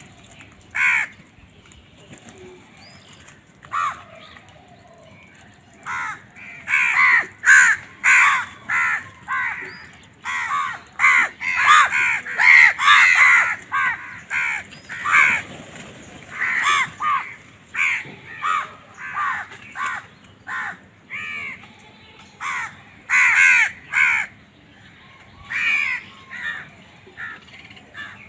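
Crow cawing in short, harsh calls: a lone caw about a second in and another near four seconds, then long runs of rapid, repeated caws from about six seconds on.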